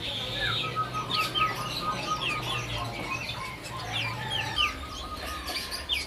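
Many caged songbirds chirping together, a busy overlapping mix of short, quick chirps. One bird keeps up a fast run of short notes on one steady pitch through most of it.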